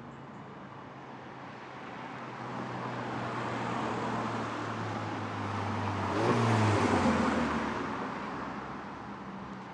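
A car passing by on a street: its engine and tyre noise build over several seconds, are loudest about six to seven seconds in as the engine note drops, then fade away.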